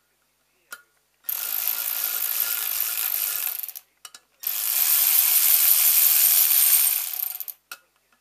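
A compressed-air tool running in two steady, hissing runs of about two and a half and three seconds, with a short pause between them.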